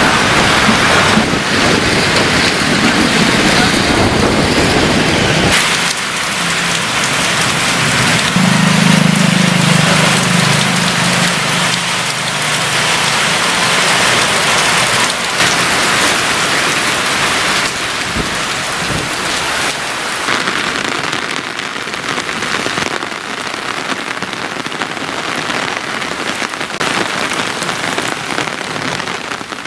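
Heavy rain pouring onto a road and surrounding surfaces, a dense steady hiss. Strong wind gusts add a low rush in the first five seconds or so, and a low rumble comes through for a few seconds about nine seconds in.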